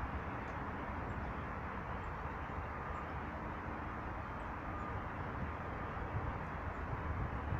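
Steady outdoor background of distant traffic rumble with some wind on the microphone, and a few faint, short bird chirps.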